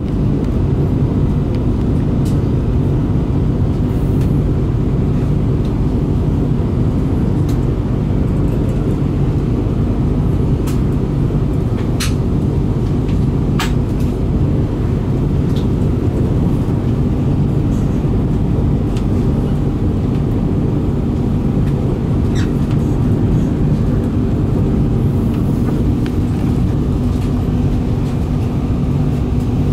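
Steady low rumble of a VR Pendolino high-speed electric train running at speed, heard inside the passenger cabin: wheels on rails and running gear. A few short clicks come about halfway through.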